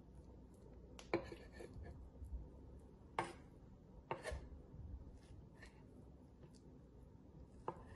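Chef's knife cutting through cubes of raw lampuga (dolphinfish) and knocking on a plastic cutting board: a few sharp, separate knocks a second or more apart, with faint ticks between.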